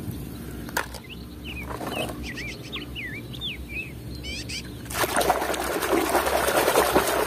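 Water splashing and sloshing as a mud-covered toy fighter jet is swished through it by hand, starting about five seconds in and the loudest sound here. Before that, a bird gives a quick run of short whistled chirps.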